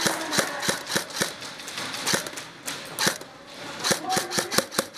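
Airsoft guns firing: a run of sharp, irregular clicking shots, several a second, coming thicker near the end.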